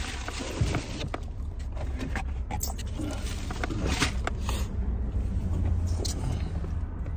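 Cotton hoodie fabric brushing and rubbing against a phone held close, with scattered short clicks and scratches, over a steady low rumble.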